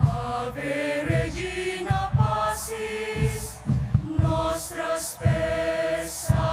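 Devotional hymn music: a choir singing over a steady low drum beat, about two beats a second.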